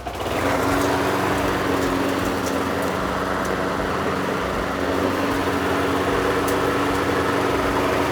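Craftsman 6.75 hp lawn mower's small engine starting right at the beginning and then running at a steady speed, freshly serviced with a new spark plug and a cleaned air filter.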